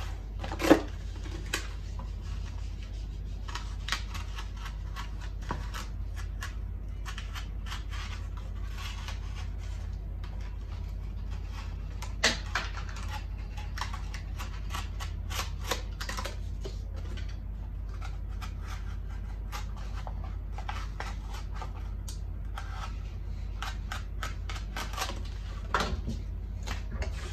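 Utility knife cutting a heart shape out of cardboard: irregular small clicks and scratchy strokes as the blade works through the board, with a sharper click about a second in and another near the middle, over a steady low hum.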